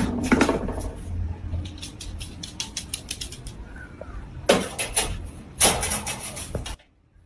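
Small dog jumping up and down inside a wire crate, the crate rattling in quick clicks and knocks, with two louder rattling bursts in the second half.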